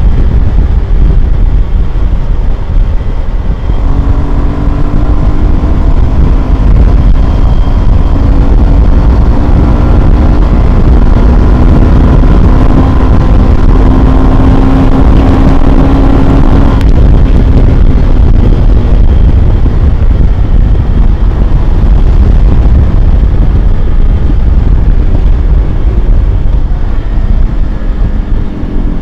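Yamaha FZ-16 (Byson) carburetted single-cylinder engine running through its stock exhaust while the bike is ridden, under a heavy low rumble. From about four seconds in the engine note climbs slowly, then drops away abruptly at about the middle.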